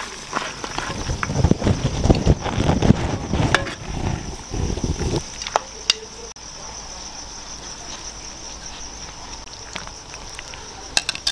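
Crickets chirring steadily. Over it, a ladle works in a large metal cooking pot, with knocks and rustling for about the first five seconds that then stop, and a few sharp clicks later on.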